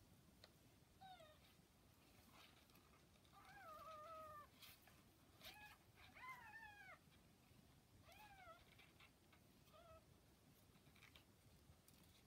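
Newborn kittens, about 40 hours old, mewing faintly: about six thin, high-pitched mews that rise and fall in pitch, two of them longer. A few faint clicks come in between.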